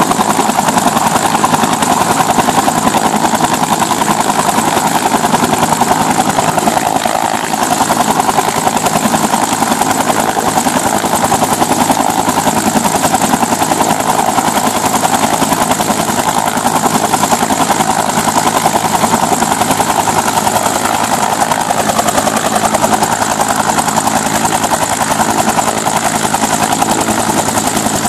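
Bell UH-1 Huey helicopter running on the ground, its turboshaft engine and main rotor turning at a steady pace, with a thin, high, steady turbine whine over the rotor noise.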